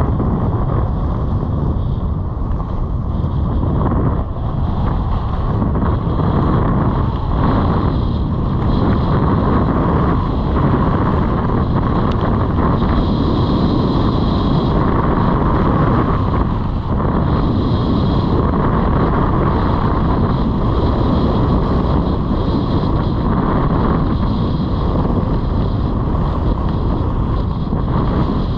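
Wind rushing over an action camera's microphone as the skier speeds downhill, with the skis running and scraping over the packed snow. The noise is loud and steady and swells a little in the turns.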